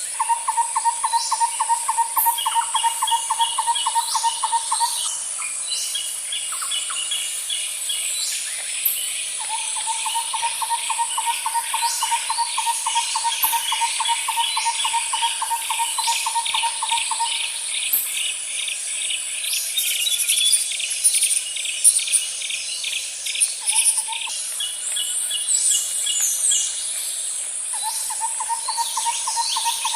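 Layered birdsong and insect ambience. A steady high insect drone runs under scattered quick bird chirps and a rapid pulsing call. Several long, fast trills at a lower pitch come and go, the longest lasting about eight seconds.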